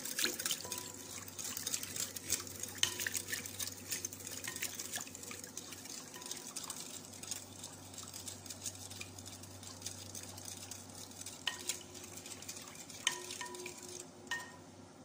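A utensil stirring an egg and condensed-milk custard mixture in a bowl: quick, dense scraping and clicking against the bowl, with a few short ringing clinks. It thins out toward the end.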